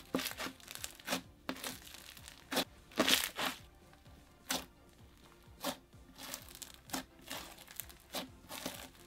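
Crunchy floam (clear slime packed with foam microbeads) being squeezed and pressed by hand: short crackling crunches in irregular bursts, about one or two a second, as the beads pop.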